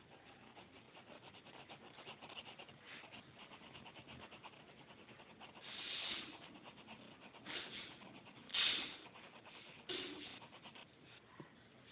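Pencil scratching on paper in quick, short shading strokes, with four louder rubbing swishes in the second half.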